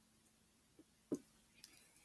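Near silence, with one short, faint squelch about a second in and a few tiny ticks after it, as homemade glue-and-borax slime is pulled and stretched by hand out of a plastic bowl.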